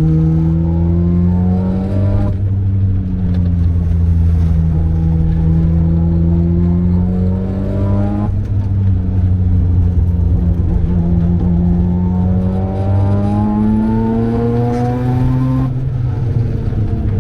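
Mazda RX-7's turbocharged 13B rotary engine pulling hard under acceleration, rising in pitch through the revs and dropping sharply at gear changes about 2, 8 and 16 seconds in, with an easing and pick-up between the first two shifts.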